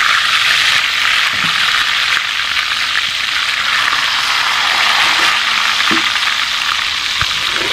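Stuffed tinda (round gourds) sizzling steadily as they shallow-fry in hot ghee in a kadai, with a few light clicks of a spoon against the pan as they are turned.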